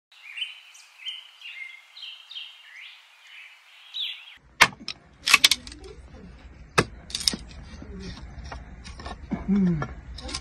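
Birds chirping in a quick string of short rising and falling calls for about four seconds. Then a scattering of sharp knocks and clicks begins.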